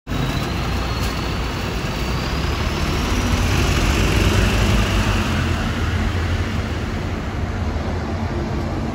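Scania K230UB city bus's nine-litre five-cylinder diesel running as the bus approaches and slows to pull in at the kerb, growing louder to about halfway and then easing off, over street traffic noise. A faint high whine rises in pitch over the first few seconds.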